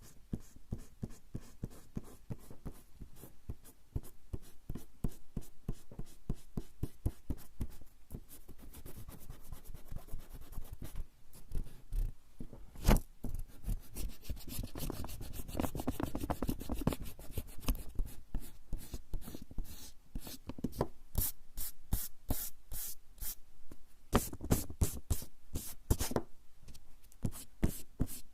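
Rubber eraser rubbing back and forth on coarse straw paper (warabanshi) in rapid short strokes. There is one sharp louder knock about halfway through, then a stretch of steadier, heavier rubbing.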